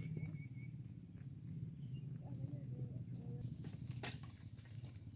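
Cows grazing, tearing and chewing wild grass in a steady crunching rustle, with a couple of sharp snaps near the end.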